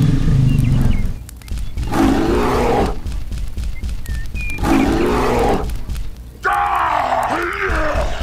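A dubbed fire-breath blast rumbles for about the first second, then come three creature roar sound effects, each about a second long, the last one bending down and up in pitch.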